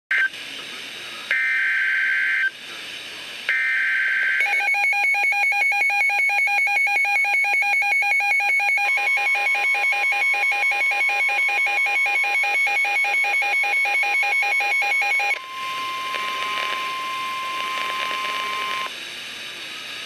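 NOAA Weather Radio alert for a severe thunderstorm warning. It opens with three short bursts of SAME digital header data tones, the first cut short. Then the alert radio's own rapid pulsed alarm beeps, joined about halfway through by the steady 1050 Hz NWS warning alarm tone, which carries on alone for a few seconds after the beeping stops.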